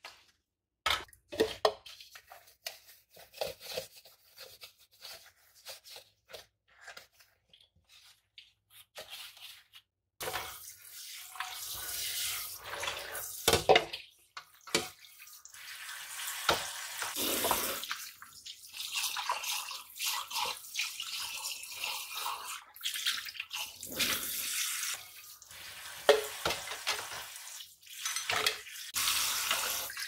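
Dishes and utensils knocking and clinking as they are washed by hand in a kitchen sink. About ten seconds in, the tap starts running steadily into the sink for rinsing, with sharp clinks of crockery under the water.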